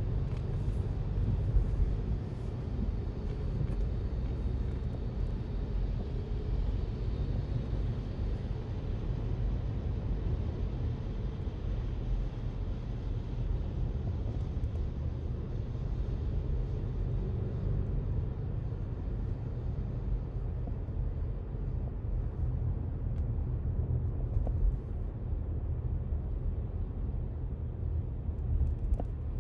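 Steady low rumble of road traffic, with no distinct knocks or machine rhythms.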